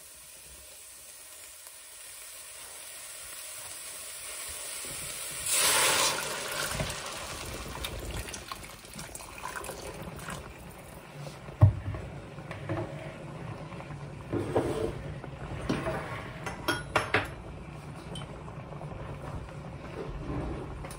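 Ham-bone broth poured from a pitcher into a hot pot of sautéed vegetables and dry split peas: after a few seconds of faint sizzling, the liquid goes in with a loud rush about six seconds in and keeps pouring and sloshing, with knocks and clinks of the pitcher and pot.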